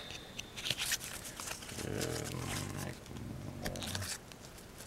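Baseball cards being flipped and slid through a hand-held stack, with light clicks and scrapes of card stock, and a man's low voice murmuring twice in the middle.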